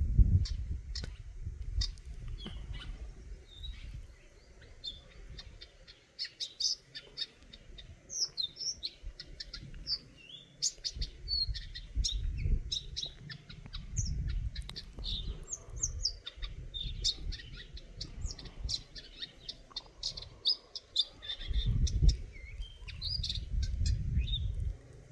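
Eurasian nuthatch calling: a long run of short, high chirps and quick up-and-down notes. A low rumble comes and goes underneath.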